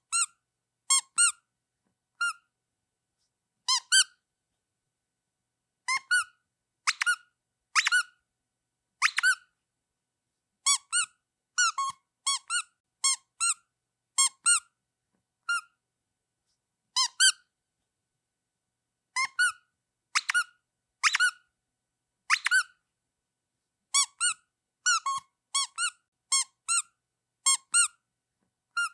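Rubber duck squeeze toy squeaking over and over. The short, high squeaks come singly and in quick runs of two to four, with silent gaps of up to a couple of seconds between them.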